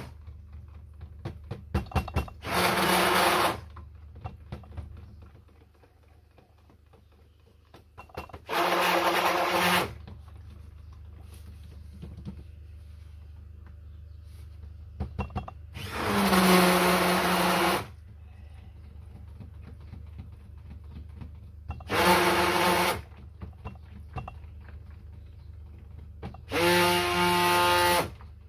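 Stick blender (immersion blender) run in five short pulses of about one to two seconds each, mixing neon colourant into small plastic pots of soap batter. A few light clicks fall between the pulses.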